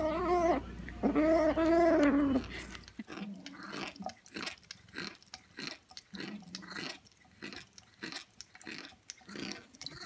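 A cat gives a drawn-out, wavering meow while gnawing on food. From about three seconds in, a different cat chews with its mouth open, making irregular clicking and smacking sounds a few times a second.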